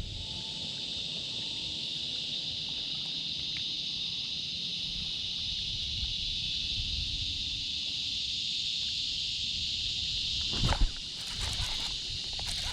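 Steady, high-pitched outdoor insect chorus. A sharp thump about ten and a half seconds in, followed by a few light clicks.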